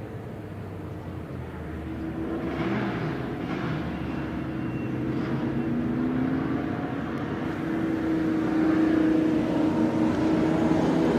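A pack of pre-1966 touring cars running together, led by Ford Mustangs with V8 engines, with several engine notes overlapping and some rising and falling in pitch. The engine sound grows steadily louder as the field approaches.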